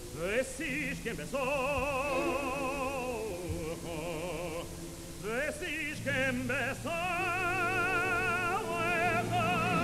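Background music: a solo voice singing a slow melody in long held notes with wide vibrato, sliding up into several of them, over a low held accompaniment.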